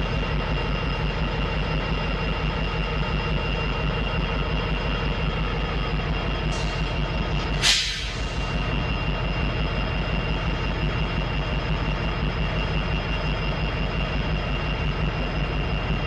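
Diesel freight locomotives running steadily with a deep, even rumble, and a short, sharp burst of hissing air about halfway through.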